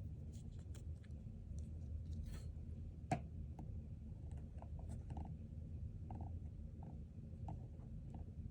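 Faint clicks and ticks of a small plastic action figure and its blaster being handled, with one sharper click about three seconds in, over a low steady hum.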